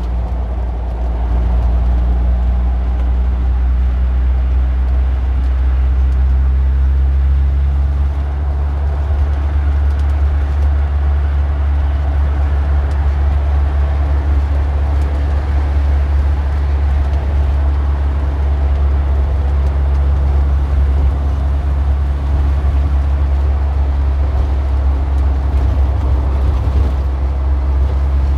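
Car engine running steadily: a continuous low hum with no gear changes or revving.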